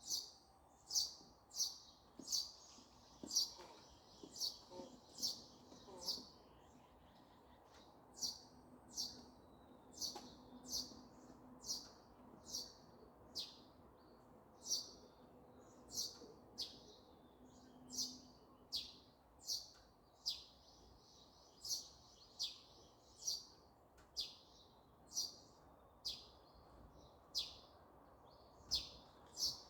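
A small songbird calling over and over with short, sharp chirps, each a quick high note falling in pitch, repeated a little more than once a second.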